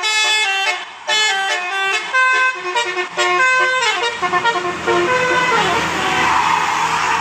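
Telolet basuri bus horn playing a quick tune of short stepping notes. About four seconds in the tune gives way to a low engine rumble and a broad rushing noise.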